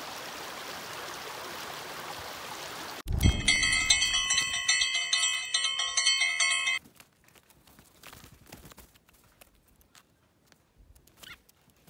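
A steady hiss, then about three seconds in a low thump and bright, many-toned bell-like chiming struck over and over. The chiming lasts about four seconds and cuts off suddenly, leaving only faint clicks.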